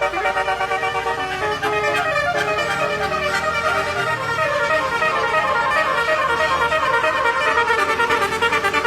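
Indonesian "telolet" bus horn, a multi-tone air horn playing a melody of quickly changing notes.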